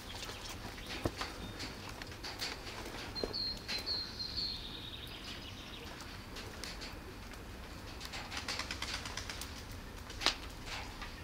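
Kittens chewing and lapping wet food from plastic trays: irregular small clicks and smacks. A bird chirps in the background a few seconds in.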